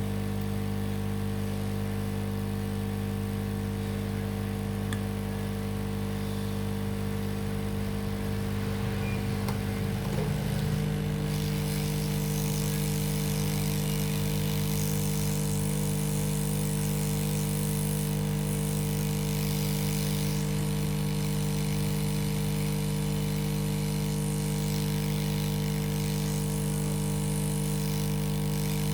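Steady hum of a small motor running, with several fixed tones; about ten seconds in its pitch shifts and a high hiss joins it.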